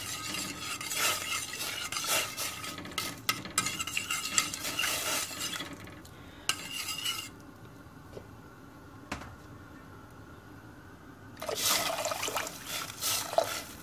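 Metal spoon stirring and scraping tomato paste around a stainless steel pot, clinking against the sides. After a quiet spell, water is poured into the pot near the end.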